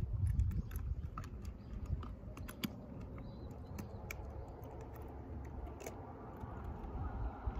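Irregular light metallic clicks and taps from a stainless hand coffee grinder being handled and opened, over a low steady rumble.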